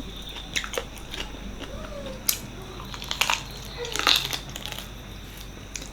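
Close-miked eating of mutton paya curry and rice: irregular wet mouth clicks and chewing, with a few sharper crunching bites, the loudest about two, three and four seconds in.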